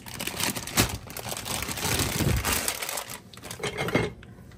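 Plastic bag of broccoli crinkling and rustling as the florets are shaken out into a pot, with a few sharp knocks. The rustling dies down about four seconds in.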